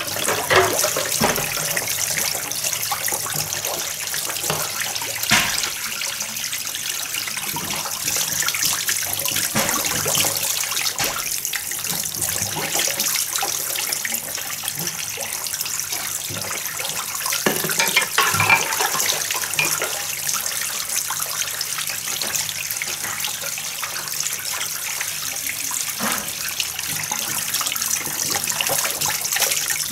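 Dishes being washed by hand in a plastic basin of water: water sloshing and splashing, with a few sharp clinks of plates and bowls knocking together.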